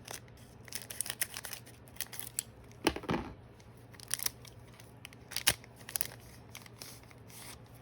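Trading card booster pack being torn open by hand, its wrapper crinkling and crackling in scattered sharp snaps, loudest about three and five and a half seconds in.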